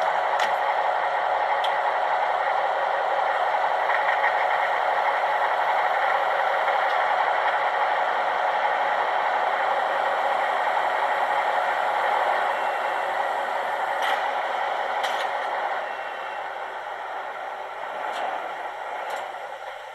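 Sound decoder (ZIMO MX645) in a Roco model V200 diesel locomotive playing the engine sound through the model's small loudspeaker, steady, with a few sharp clicks. It quietens about three-quarters of the way through.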